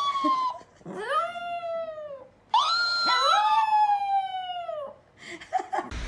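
A pet animal howling: three long calls, each rising and then sliding slowly down in pitch, followed by a few short sounds.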